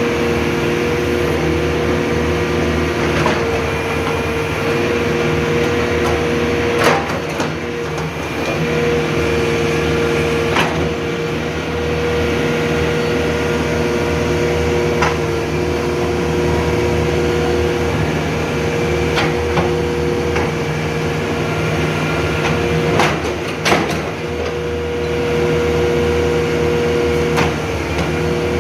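JCB backhoe loader's diesel engine running steadily with a constant whine over its hum, with a sharp knock or clank every few seconds.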